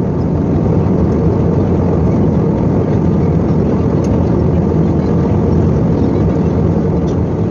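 Steady cabin noise inside an Airbus A321 airliner in cruise flight: an even, low rumble of the engines and the air streaming past the fuselage, unchanging throughout.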